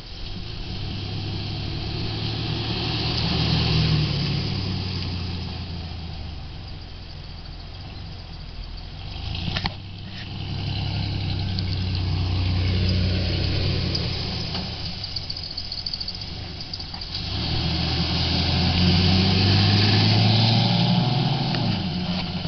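Pickup truck engine running at low speed while the truck is driven, its note rising and falling with the throttle and swelling three times. A single sharp click about ten seconds in.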